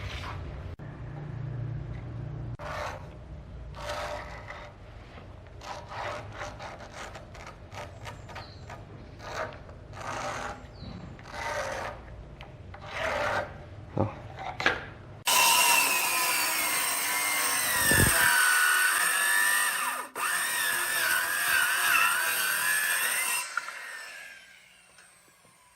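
Wood being worked by hand with a series of separate rasping strokes, like sawing or filing. About two-thirds of the way in, a power tool starts suddenly on the wood, its pitch dipping and wavering under load, then cuts off and dies away near the end.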